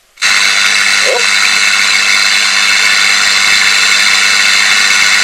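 The speaker of a 1977 Philips Philetta TX711 portable black-and-white TV suddenly bursts into loud, steady static hiss with a low hum under it. This is its sound stage coming to life as the mains voltage is raised on the variac.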